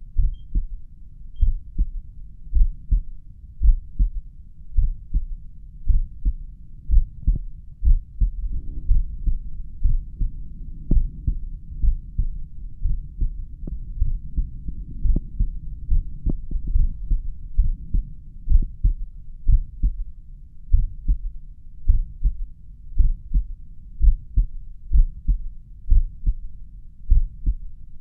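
A person's slow resting heartbeat heard through a stethoscope at the mitral area: low, even thumps at about one beat a second.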